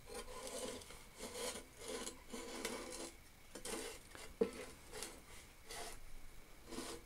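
Faint handling noise as a small scrap-metal model lathe is turned around by hand on a wooden bench: metal rubbing and scraping on wood, with a light knock about four and a half seconds in.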